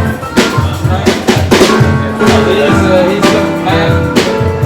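Live band music with a drum kit keeping a steady beat under sustained instrument chords.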